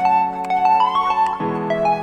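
Background music: a light instrumental tune with a keyboard melody over held chords.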